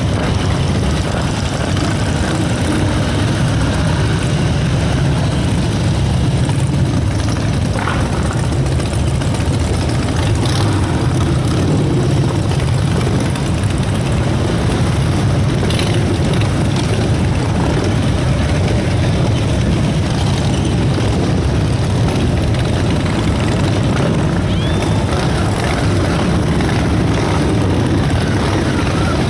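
A long procession of motorcycles, cars and trucks rolling in, many engines blending into one steady, loud low drone.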